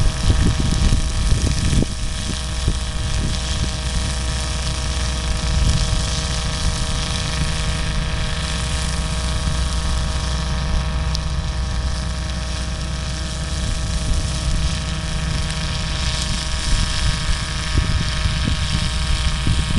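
Massey-Ferguson 390 diesel tractor working under load with a New Holland horizontal-axis flail shredder spinning, mulching mustard: a steady mechanical drone with a constant whine over it. Wind buffets the microphone.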